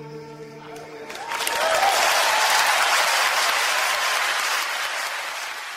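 The last held chord of sung music ends about a second in and gives way to an audience applauding, which slowly fades out near the end.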